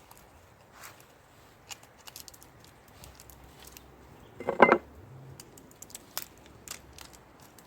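Cooking gear being handled: scattered light clicks and taps, with one brief loud clatter about four and a half seconds in.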